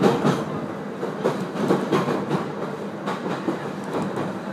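701-series electric train running on the rails, heard from inside the carriage: the wheels give irregular clacks over the track, over a steady low hum.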